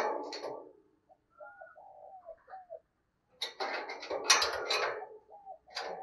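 Spotted dove cooing in a wire cage: a run of short, curved coos in the middle, between two louder, rougher bursts of sound, one at the start and one from about three and a half seconds in.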